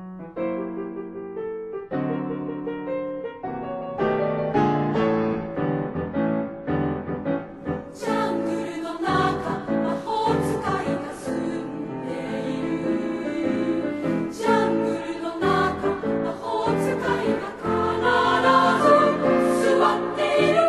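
Equal-voice three-part choir singing with piano accompaniment. The piano plays alone at first, and the voices come in about eight seconds in.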